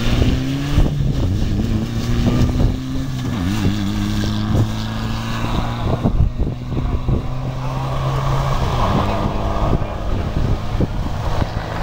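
Rally car engine running hard on a gravel stage as the car pulls away: the note climbs, wavers briefly about three seconds in, holds, then drops about eight seconds in. Wind buffets the microphone.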